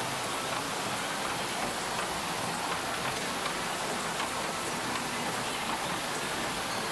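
Steady hiss-like rushing noise of riding a small amusement-park train, even in loudness and without a clear engine or whistle tone.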